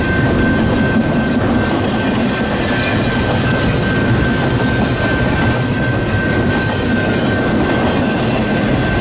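Freight train rolling past close by: a loud, steady rumble of wheels on rail with faint repeated clicks, and a thin high tone held throughout.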